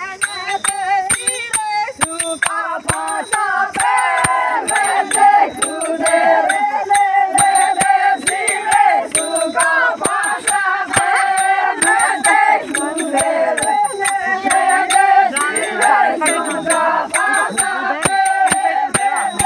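Group of women singing a Meenawati folk song together, kept in time by steady hand clapping.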